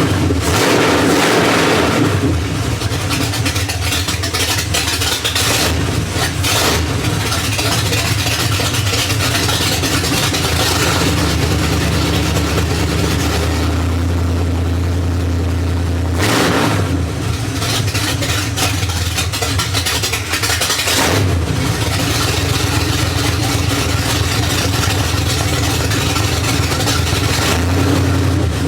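1979 Chevrolet C10 engine running through open headers, idling loudly with a few brief revs of the throttle: near the start, about 16 seconds in and again about 20 seconds in.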